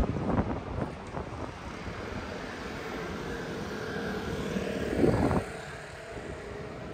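City street traffic: a car passes loudly at the start, a steady engine drone runs through the middle, and a second vehicle surges past about five seconds in.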